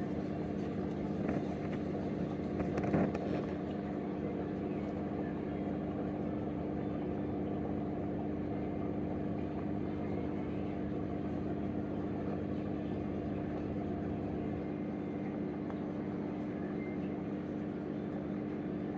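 Aquarium pump humming steadily with a constant low drone. A couple of brief knocks sound in the first few seconds.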